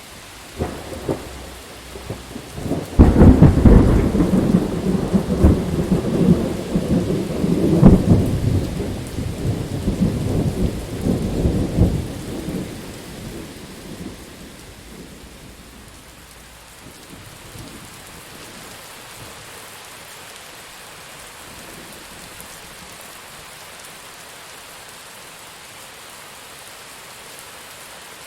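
Thunderstorm: steady rain with a loud peal of thunder that breaks about three seconds in and rumbles for some ten seconds before dying away. Then only the even hiss of rain is left.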